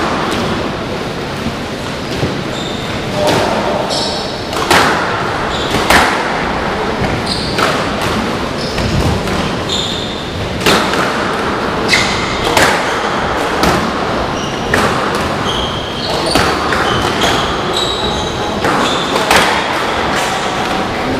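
Squash rally: sharp smacks of the racket hitting the ball and the ball striking the walls every second or so, with short squeaks of shoes on the wooden court floor over steady hall noise.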